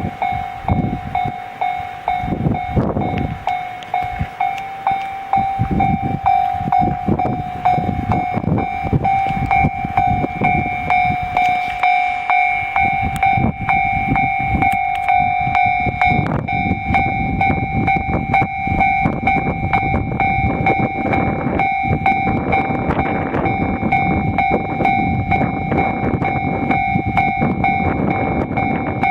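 Japanese railroad crossing warning bell ringing in steady, evenly repeated strokes. A passing train rumbles beneath it, building about five seconds in and heavier from about halfway through.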